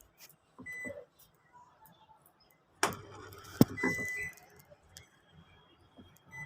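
Panasonic washing machine's control panel beeping as its buttons are pressed to select the spin program, with a few clicks and a sharp knock about three seconds in.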